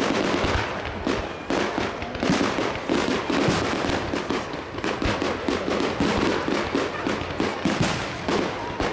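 Fireworks display: aerial shells bursting one after another in an overlapping run of bangs and crackles, several a second.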